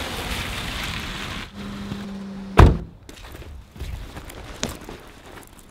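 A rushing noise that stops about a second and a half in, a brief low hum, then a single loud thunk about two and a half seconds in, followed by a few faint knocks.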